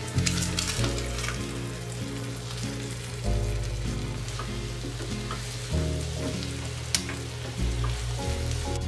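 Beaten eggs with tomato sizzling in a nonstick frying pan, stirred and scraped with a wooden spatula in a few sharp clicks, over background music with a steady bass line.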